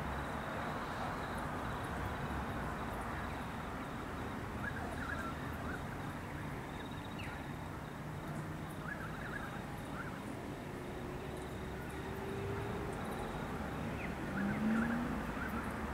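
Steady outdoor background noise with a few short bird chirps scattered through it. Near the end comes a brief rising tone, the loudest sound in it.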